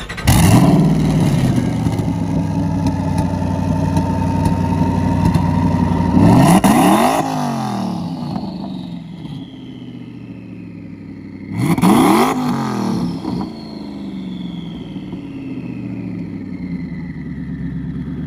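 Hennessey-modified Ford GT's 5.4-litre V8 firing up and running at a fast idle, then revved twice in short throttle blips that rise and fall back, about six and twelve seconds in, settling to a lower idle.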